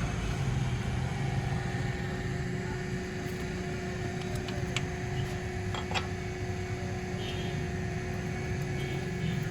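Steady low mechanical rumble with a constant hum, broken by two short sharp clicks about five and six seconds in.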